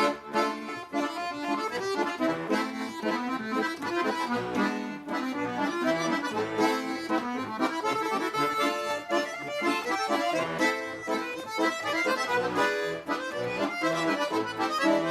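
Bayan (Russian button accordion) playing a chastushka tune, melody over chords, as the instrumental introduction to the song.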